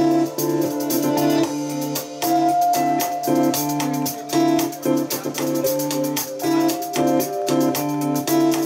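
Live band playing an instrumental passage: synthesizer and keyboard chords held and changed about every second, over a drum kit keeping time with rapid high ticks.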